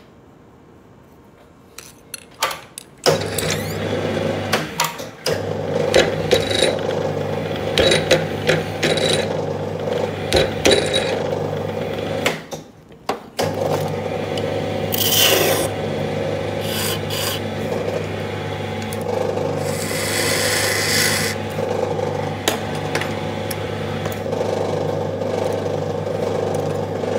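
Small lathe motor starting about three seconds in and running with a steady hum, while a hand-held wooden paint-brush handle rubs and scrapes against the spinning tool. The motor cuts out for about a second near the middle, then runs again.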